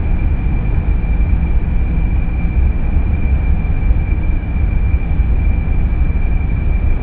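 The camera's own outdoor sound played back at quarter speed: a deep, dense, steady rumble with a thin steady whine held high above it.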